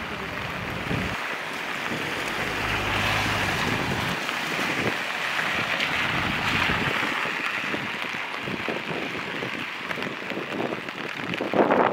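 Steady hiss of falling rain, swelling somewhat in the middle and easing again.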